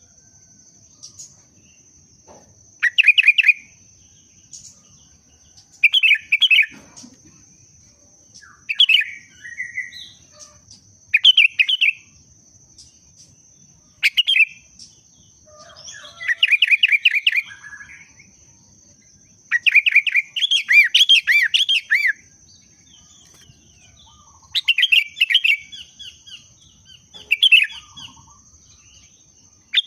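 Sooty-headed bulbul singing in breeding condition: short bursts of quick, bubbling chirps repeated every few seconds, with a longer run of notes about two-thirds of the way through. This is the vigorous breeding-season song that bird keepers play to spur caged bulbuls into singing.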